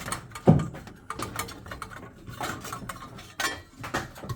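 Scattered light metallic clinks and knocks as a burner cover and its screw are handled and taken off, the loudest knock about half a second in.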